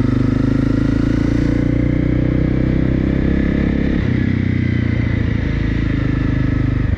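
Honda CRF250L's single-cylinder four-stroke engine running at a steady, moderate speed while being ridden.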